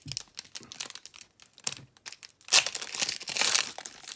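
Foil wrapper of an Optic baseball card hobby pack crinkling and tearing as it is pulled open by hand. Light scattered rustles at first, then louder crinkling from about halfway through.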